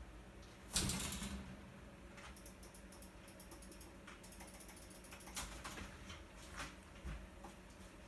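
Rose-ringed (Indian ringneck) parakeet's wings flapping in a short flurry about a second in as it flies off a wire cage, followed by a few faint scattered clicks.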